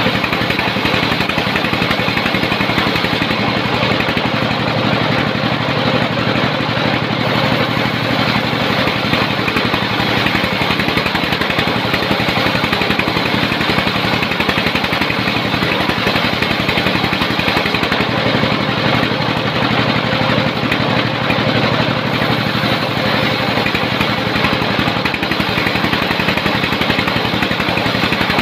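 A sawmill's engine running steadily with a fast, even pulse and small shifts in tone.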